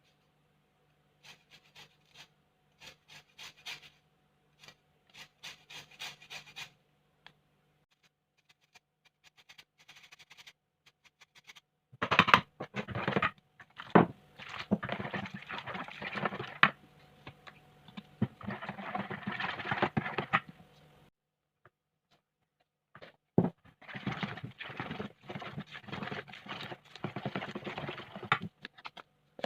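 Kitchen handling sounds: scattered light clicks, then long stretches of scraping and rubbing with sharp ticks, as of utensils and ingredients being worked in a bowl.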